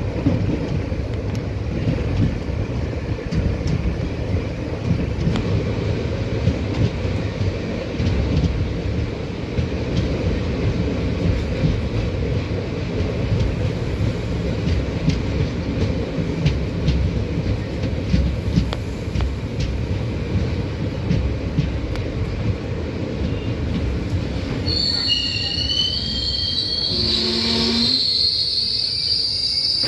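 Passenger express train running on the rails past a goods train on the next track, heard from the open coach doorway: a steady rumble with wheels clicking over rail joints. In the last five seconds a loud high-pitched squeal comes in.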